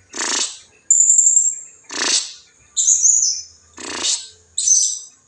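Blue-crowned hanging parrot (serindit) calls used as a lure for rival birds: harsh, rasping bursts about every two seconds alternating with thin, very high squeaky notes.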